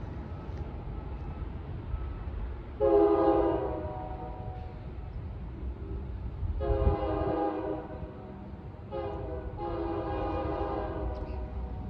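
Train horn sounding the grade-crossing signal: two long blasts, a short one and a final long one, over the low rumble of the train.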